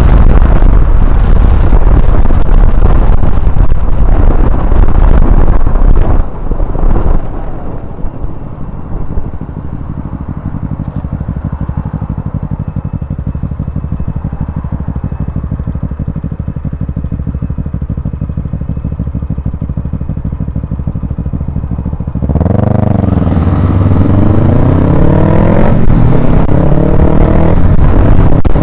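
Honda CBR125R's single-cylinder four-stroke engine under way with loud wind and road noise, then slowing and idling steadily for about fourteen seconds. About 22 seconds in it pulls away, the engine pitch rising and dropping several times as it shifts up through the gears.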